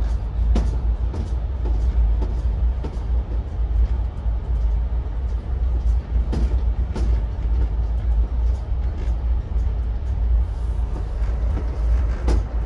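Train running at speed, heard from a carriage window: a steady low rumble with irregular sharp clacks of the wheels over the rail joints.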